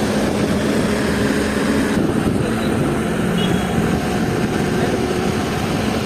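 Mobile crane's diesel engine running steadily, an even low drone.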